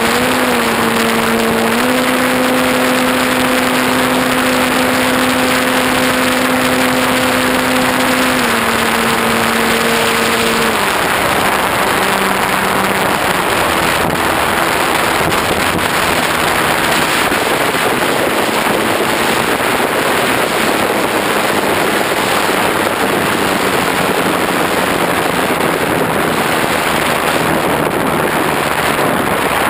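Electric motor and propeller of a ParkZone T-28 Trojan model plane, heard from a nose-mounted camera: a steady whine that steps up in pitch about two seconds in, drops back near eight seconds, and is throttled off about eleven seconds in. From then on loud wind rush on the microphone dominates, with a fainter, lower propeller tone as the plane glides down.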